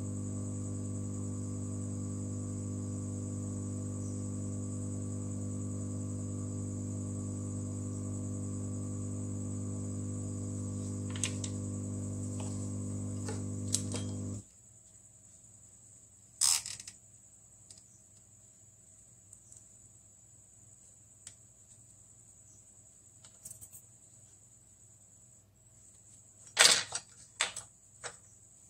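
A steady electrical hum with a constant high whine; the hum cuts off suddenly about halfway through. A few sharp clicks and taps follow, with a louder pair near the end.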